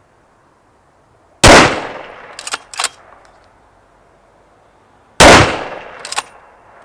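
Two shots from a .308 Savage Impulse Elite Precision rifle, about four seconds apart, each ringing away over about a second. Each shot is followed about a second later by two sharp clicks.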